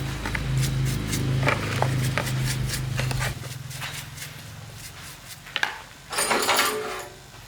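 A low, steady machine hum with a slow pulse cuts off about three seconds in. Scattered clicks and knocks follow, with a short scraping noise near the end.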